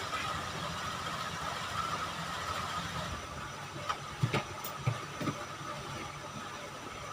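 A steady background hum with a faint whine running through it, and a few short soft knocks and clicks between about four and five and a half seconds in, like objects being handled and set down.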